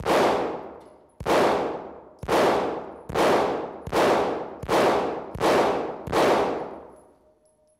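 Kahr MK9 Elite 9mm steel-frame pistol firing eight shots in slow, steady succession, a little under a second apart. Each shot rings out in a long echo off the indoor range's walls.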